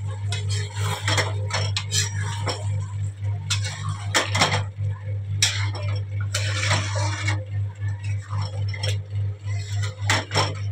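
Spatula scraping and clinking against a metal kadai as a thick chicken curry is stirred, in irregular strokes with one longer scrape about two-thirds of the way through, over a steady low hum.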